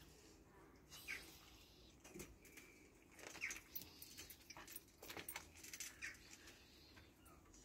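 Near silence: faint scattered ticks and a few brief high chirps over a quiet background.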